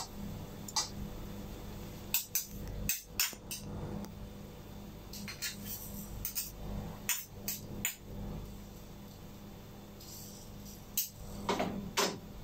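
Metal spatula and ladle clinking and scraping against a wok while stir-frying bean sprouts, in irregular clusters of sharp taps.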